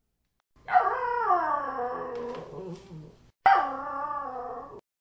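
Shetland sheepdog giving a vocal yawn: two drawn-out, howling whines, each starting high and sliding down in pitch, the first about three seconds long and the second shorter.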